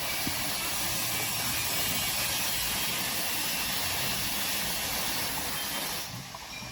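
A steady hiss that cuts off about six seconds in.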